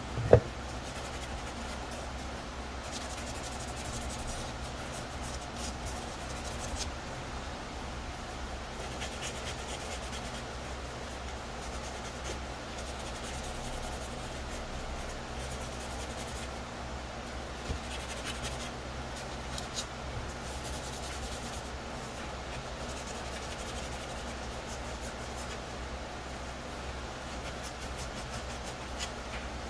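Hand sanding a plastic helmet shell with a fine abrasive sponge: steady scratchy rubbing, with one sharp knock just after the start.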